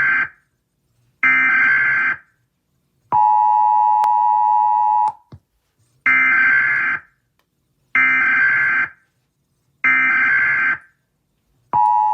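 Emergency-alert-style warning tones: about one-second bursts of a high, many-toned beep repeating every two seconds or so, broken twice by a longer, lower steady tone.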